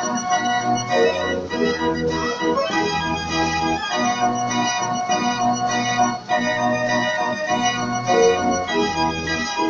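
A 65-key Gasparini fair organ playing a tune from folded cardboard book music: a pipe melody over bass notes and accompaniment chords in a steady rhythm.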